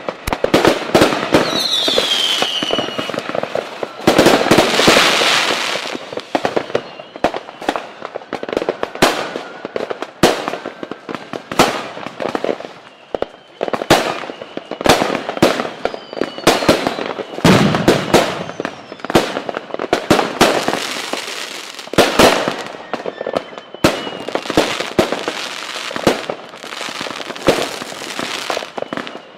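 Fireworks going off in a dense, irregular barrage of sharp bangs and crackling, with a falling whistle about two seconds in. The densest crackling comes around four to six seconds in.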